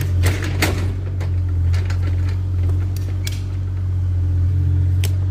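Diesel engine of a mini excavator idling steadily, a constant low hum, with several sharp clicks from hand tools on the well pipe fittings.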